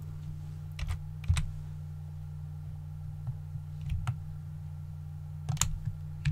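A handful of sharp, separate clicks from a computer mouse and keyboard, spread out with pauses between them, over a steady low hum.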